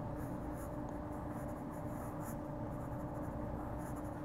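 Palomino Blackwing graphite pencil scratching on sketchbook paper in a run of short drawing strokes, over a steady low hum.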